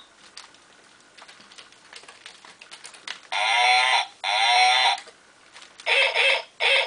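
Electronic animal calls from a musical baby play mat, played through its small speaker when its pictures are pressed: two calls with a wavering pitch about three seconds in, then two shorter calls about six seconds in. Faint clicks and crinkles of the plastic mat being pressed come in between.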